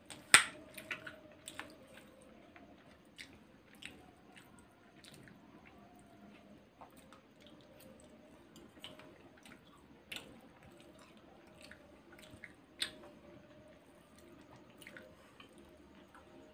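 Chewing and mouth sounds of someone eating dessert, with scattered sharp clicks of a metal fork against a ceramic plate; the loudest click comes just after the start and another stands out about thirteen seconds in.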